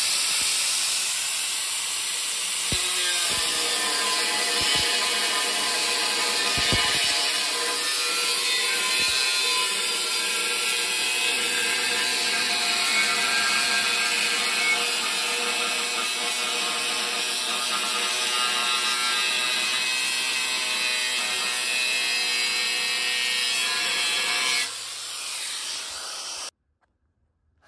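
Angle grinder with a cut-off wheel slicing slots into quarter-inch steel plate, a steady whining grind. Near the end the sound drops to a quieter level and then cuts off.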